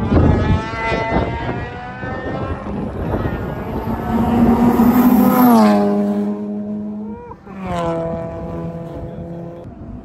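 Turbocharged rotary-engined Mazda RX-7 passing at wide open throttle. The engine note builds as the car approaches, drops sharply in pitch as it goes by about five and a half seconds in, then fades as it pulls away, with a brief break in the note about a second and a half later.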